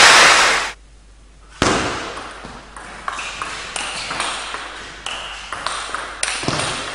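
A loud burst of crowd noise at the end of a point cuts off. About a second and a half later a table tennis rally starts: the ball clicks sharply off the bats and the table about twice a second, each hit with a short ringing ping.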